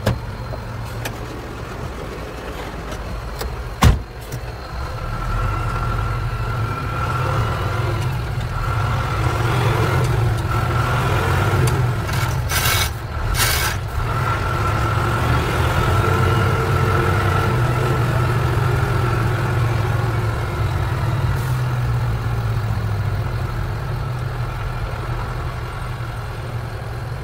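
Truck engine running under way, heard from inside the cab: a steady low drone with a faint high whine over it. There is a sharp knock about four seconds in, and two short hisses about halfway through.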